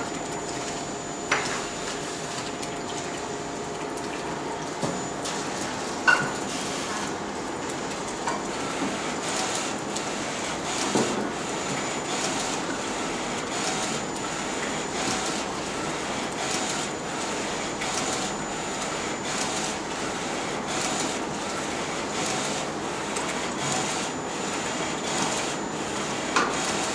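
Flatbed direct-to-garment T-shirt printer running: a steady mechanical hiss with a faint high whine, and faint regular clicks from the print-head carriage shuttling back and forth. There are two sharper knocks in the first few seconds.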